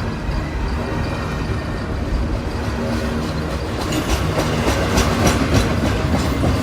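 Norfolk Southern freight train's cars rolling past: a steady rumble of steel wheels on rail, with sharper clicks of wheels over rail joints coming in about four seconds in.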